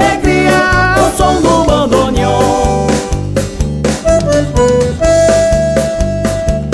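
Instrumental band music: a squeezebox melody of long held notes over a steady bass beat.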